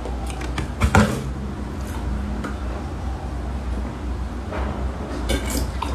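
Mouth-full chewing, then a large plastic milk jug knocked and handled as it is lifted, with a sharp knock about a second in, followed by drinking straight from the jug. A steady low hum runs underneath.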